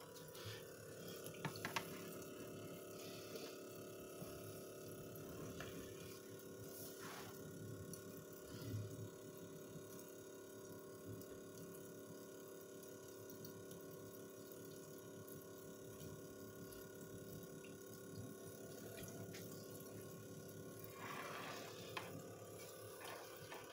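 Small DC water pump running with a steady hum while water trickles into a stainless steel sink drain, with a few faint clicks.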